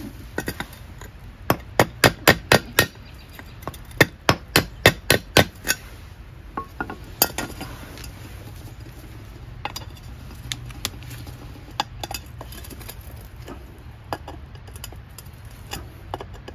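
Hammer blows in two quick runs of about six strikes each, then a few scattered single taps with a clinking ring.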